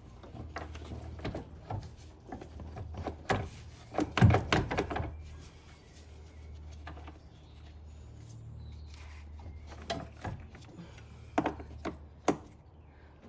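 Clunks, knocks and clicks of hard plastic and metal as the battery's hold-down clamp and long retaining bolt are worked loose and lifted out beside the car battery, with a cluster of heavier knocks about four seconds in and a few sharp clicks near the end. A low steady hum runs underneath.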